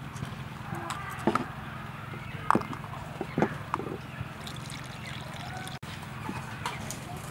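Water poured from a plastic bowl into a steel mixing bowl of flour and egg, trickling and sloshing, then a wooden spoon starting to stir the batter. Three short, sharp sounds come in the first half and are the loudest things heard.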